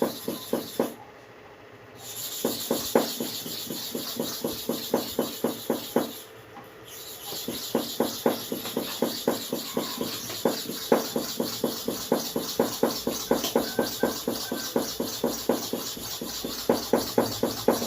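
GTS hair-clipper bottom blade rubbed back and forth on a wet quartz-surface sharpening stone: rhythmic grinding strokes, about four a second, stopping briefly twice, about a second in and about six seconds in.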